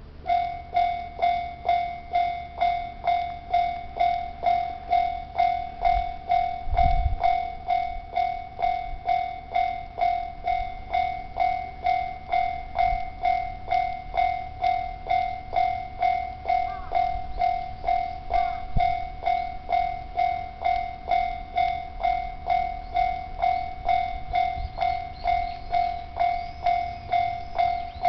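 Japanese level-crossing warning bell starting up and ringing at a steady rate of about two strikes a second, each strike a clear metallic-sounding tone. A brief low rumble comes about seven seconds in.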